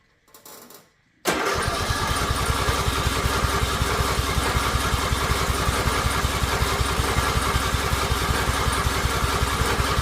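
Riding lawn mower engine being cranked on its electric starter, kicking in suddenly about a second in and turning over steadily with a fast even pulse without catching: the engine won't start, though it acts like it wants to.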